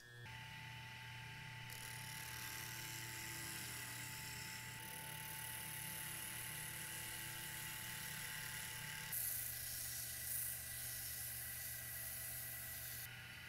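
Small bench lathe motor starting up and running with a steady hum and whine, spinning a steel shaft that is worked by hand, first with a small hand tool and then with an abrasive block, giving a steady scraping hiss. The hiss grows louder about nine seconds in and stops shortly before the end while the motor keeps running.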